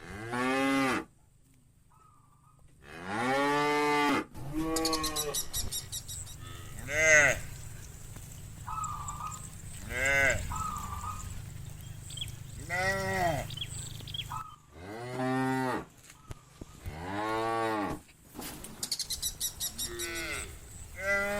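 A herd of cows mooing again and again, about ten separate moos a second or two apart. Each call rises and then falls in pitch, and some are deeper and some higher.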